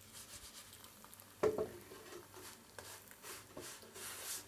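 A hand patting and pressing a round of flatbread dough flat in a frying pan: soft pats and rubs over a faint sizzle, with one sharp knock about one and a half seconds in.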